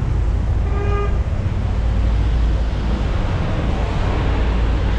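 City street traffic: a steady rush of passing vehicles, with a short single car-horn toot about a second in.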